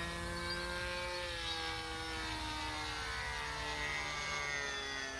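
Radio-controlled model plane's engine running at speed in flight, a steady buzzing note that slowly drops in pitch.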